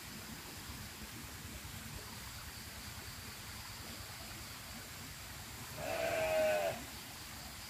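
A single bleat from a farm animal, about a second long and wavering in pitch, a little past the middle, over faint steady background.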